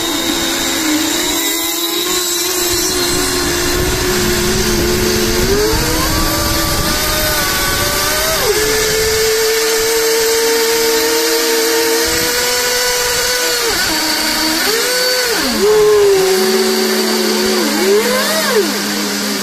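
Several small two-stroke glow engines of FSR-V 3.5 radio-controlled racing boats running at once in a high, buzzing whine. Their pitch holds, then rises and falls as they are revved during warm-up before the start.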